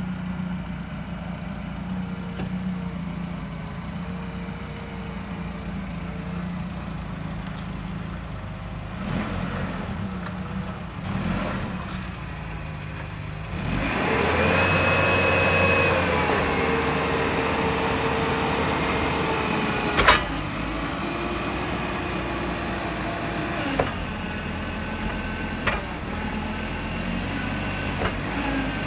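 Caterpillar P6000 forklift's engine running. About halfway through, it grows louder with a held whine for several seconds, which ends in a sharp clunk. It then settles back to a steady run, with a few light knocks.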